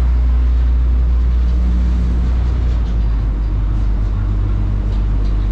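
River car ferry's engine running with a steady low drone.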